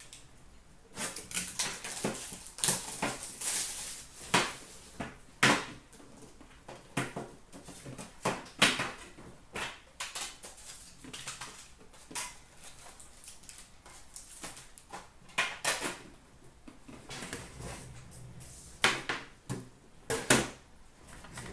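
Hands opening a metal trading-card tin and handling foil card packs: irregular clicks, knocks and crinkles of tin and wrappers, some of them sharp.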